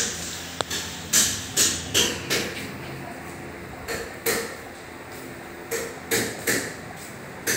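Repeated sharp knocks, about a dozen, irregularly spaced and some in quick pairs, over a faint steady low hum.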